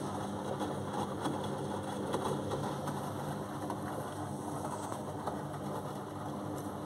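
Beko front-loading washing machine tumbling a wet load, with a steady motor hum under the splash and slosh of water and laundry in the drum and scattered light clicks.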